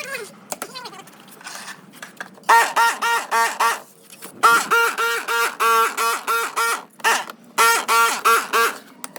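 An animal calling in three quick runs of short, pitched, repeated calls, about four or five a second, with short pauses between the runs.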